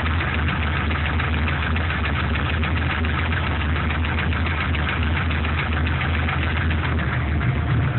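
GM LS1 5.7-litre V8 idling warm, a steady low hum with a fast, even ticking over it. The owner asks whether the tick and noise are piston slap.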